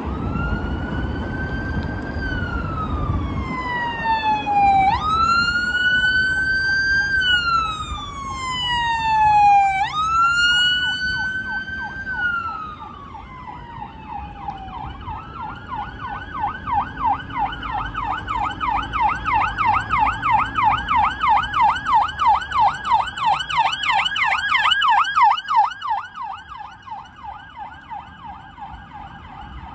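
Emergency vehicle's electronic siren sounding a slow wail, each rising-and-falling sweep taking about five seconds, then switching about halfway through to a fast yelp. The yelp fades near the end.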